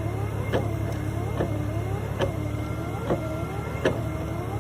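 1989 Jeep Wrangler's 4.2-litre inline-six running at a steady idle after an oil change, with a sharp click repeating a little more than once a second.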